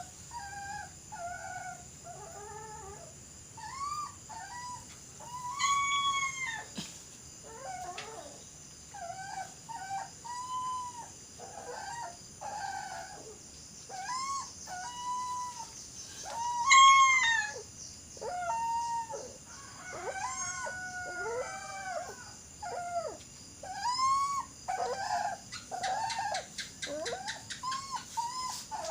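A dog howling and whining over and over in short, arching, high-pitched cries, with one louder cry about two-thirds of the way through.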